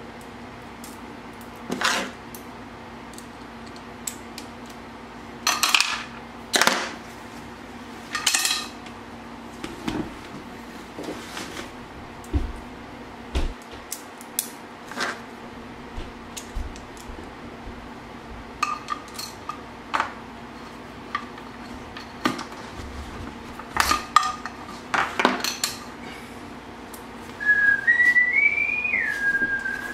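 Scattered metallic clicks and clinks of inline skate hardware (Wizard NR110 frame, 110 mm wheels, axle bolts) being handled while the wheels are refitted to the frame, over a steady low hum. Near the end, a brief whistle rises and falls.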